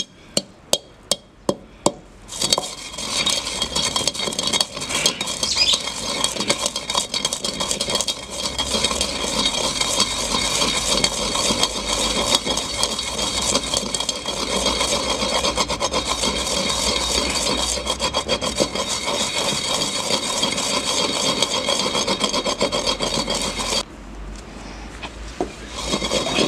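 Toasted whole spices (black peppercorns, coriander seed and cloves) being crushed with a wooden pestle in a terracotta mortar: a few sharp pounding strikes a second at first, then a steady gritty grinding and rubbing as the seeds break down to powder. The grinding drops away briefly near the end and then resumes.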